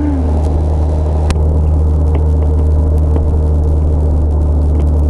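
Motorcycle engine running at a steady cruising speed, recorded on board: a steady low drone with wind and road noise over it. A single sharp click a little over a second in.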